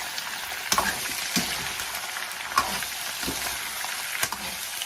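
Lamb ribs sizzling as they are stir-fried in hot oil and caramelised sugar: a steady frying hiss with a few sharp knocks of the spatula against the pan.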